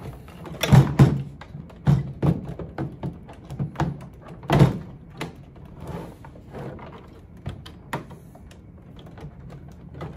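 A 12 V 9 Ah sealed lead-acid battery being handled and pushed into the plastic case of a CyberPower UPS: a run of knocks and thunks, the loudest about a second in and again about four and a half seconds in.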